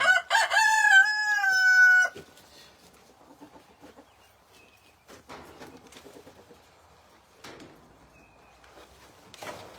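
A rooster crowing once, about two seconds long: a few short broken notes, then a long held note that cuts off.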